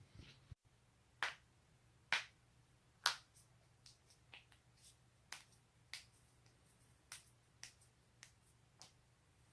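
Neck joints cracking: three loud, sharp pops about a second apart, then a run of about a dozen smaller pops, roughly two a second.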